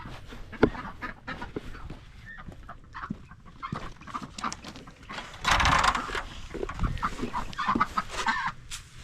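Ducks and chickens calling: many short clucks and quacks overlapping, loudest for about a second just past halfway through.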